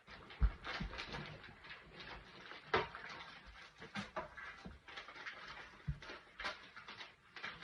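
Irregular knocks, clicks and rustling of things being handled in a small room, with a heavier thump about half a second in and a sharp knock near three seconds.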